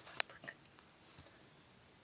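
One sharp click about a quarter of a second in, with a few fainter clicks and rustles just after it, then only faint background noise.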